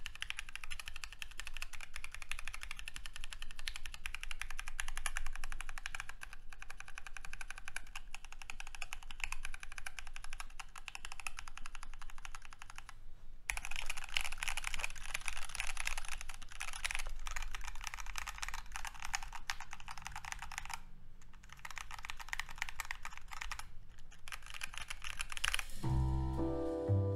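Fast, continuous typing on a Glorious GMMK Pro mechanical keyboard with Gateron Yellow linear switches, PBT keycaps and the stock aluminium plate, unmodded, as a sound test. The typing pauses briefly about 13 seconds in and twice more after 20 seconds, and piano music comes in near the end.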